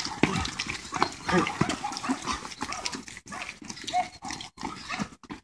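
Footsteps of several runners passing close by on a brick-paved path, an irregular patter of footfalls.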